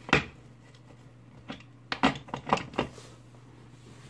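Light clicks and taps of small hand tools being put down and picked up on an electronics repair bench: one sharp click at the start, then a quick run of taps about halfway through. A steady low electrical hum runs underneath.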